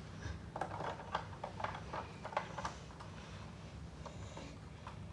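Faint clicks and light taps of plastic Lego pieces being handled and pressed together, several small clicks in the first three seconds, then fewer.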